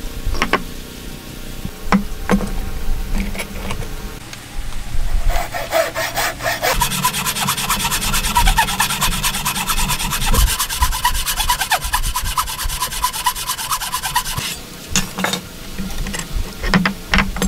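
Hand saw cutting across a wooden block, a steady run of rapid rasping strokes that starts about five seconds in and stops about ten seconds later. A few sharp knocks and taps come before and after it.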